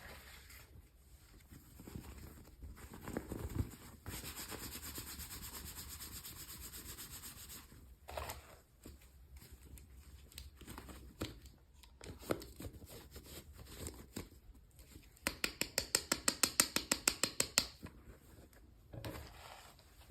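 Toy packaging being handled and opened: scattered rustling and rubbing, about four seconds of steady tearing or peeling, then a fast run of clicks, about ten a second, near the end.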